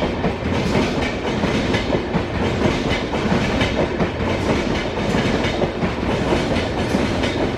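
Express passenger train running past at speed, its wheels clattering steadily over the rail joints.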